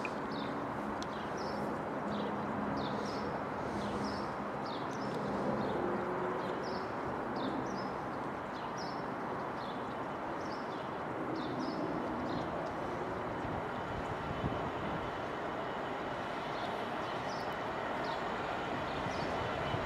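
A steady distant rumble of an approaching Class 66 diesel-hauled freight train, with a small bird chirping over and over in short high notes through the first two-thirds.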